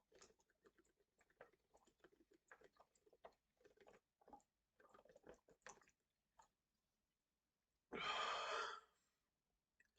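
Faint wet mouth clicks and gulping from a man chugging carbonated Sprite, then about eight seconds in a single loud burp lasting nearly a second, brought up by the gas from the chugged soda.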